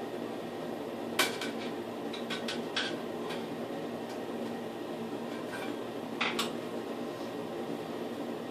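Metal parts of a vanity light fixture clinking as they are handled: one sharp clink about a second in, several lighter ones soon after, and another pair about six seconds in, over a steady hum.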